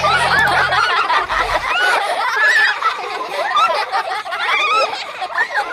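A group of children laughing and giggling, many high voices overlapping. A low musical hum underneath stops about a second in.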